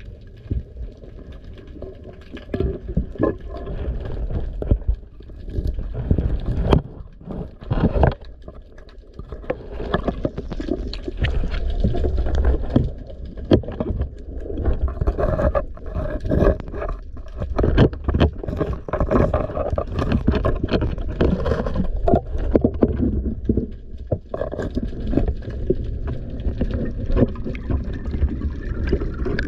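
Underwater sound picked up by a diver's camera: water rushing and gurgling against the housing, with irregular clicks and knocks from the diver's movement.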